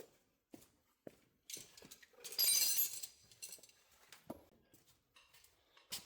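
Scattered metallic clinks and knocks of hand tools and parts, with one louder jangling rattle lasting about a second a little over two seconds in.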